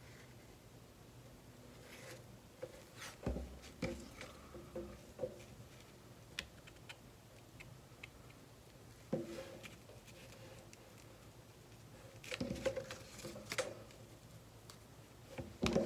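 Soft handling sounds of paper crafting: a brown paper bag and lace trim being pressed down, lifted and bent, giving scattered light taps and paper rustles. The sounds are busiest a few seconds in and again near the end, with a louder clatter just before it closes.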